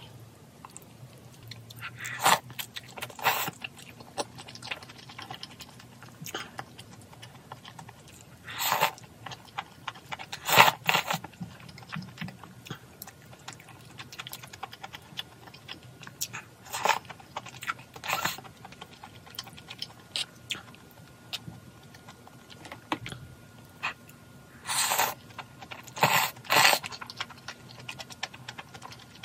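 A person eating malatang close to the microphone: chewing and crunching, with sharp clicks and short louder bursts every few seconds.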